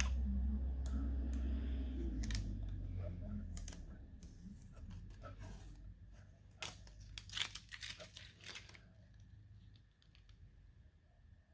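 Handling noise: a low rumble for the first few seconds as something is moved close to the microphone, then a run of scattered clicks and crinkling rustles that die away.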